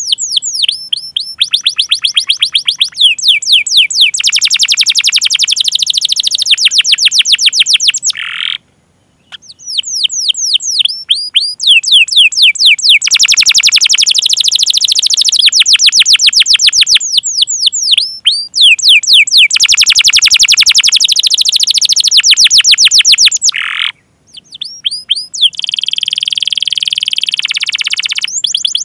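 Domestic canary singing a long song of fast rolling trills and repeated 'cuit cuit' chirps, with two brief pauses. Near the end the song turns into a continuous buzzing roll.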